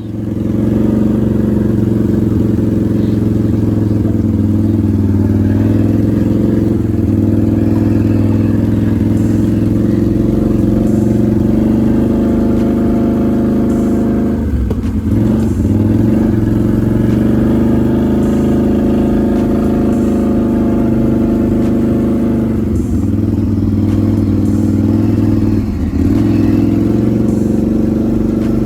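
ATV (four-wheeler) engine running steadily under way. The engine note dips and swings briefly about halfway through and twice near the end as the throttle is eased and reopened.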